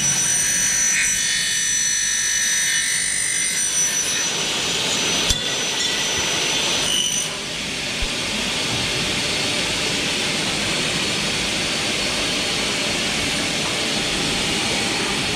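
Twin-head aluminium mitre saw cutting an aluminium window profile: a high, many-toned screech from the blades for about four seconds over the steady running of the saw motors. A sharp click comes about five seconds in, then the motors run on steadily.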